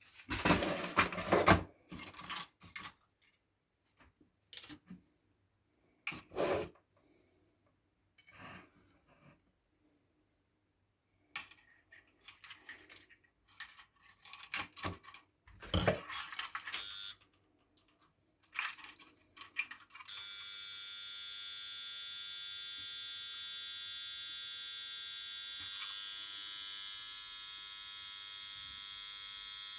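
Irregular clicks and knocks of the kettle's parts being handled. About two-thirds of the way in, a steady high electrical buzz starts abruptly and holds at an even level.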